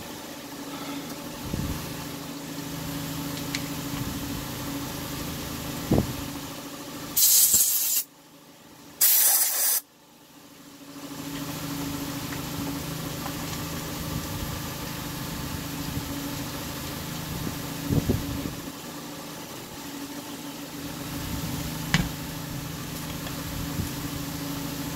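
Two short, loud hissing bursts of aerosol spray, about a second apart, over a steady low background hum, with a few light clicks of handling.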